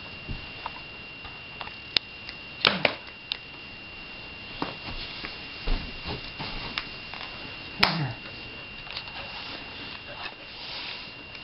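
Scattered thumps and taps as a person and a dog play on a carpeted floor, the loudest a few sharp knocks about two and three-quarter seconds in and near eight seconds, over a faint steady high whine.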